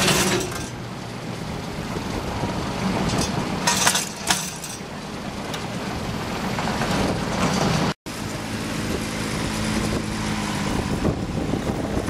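Yanmar AF120 compact tractor's diesel engine running steadily, with gusts of wind on the microphone near the start and about four seconds in. The sound cuts out for an instant about two-thirds of the way through.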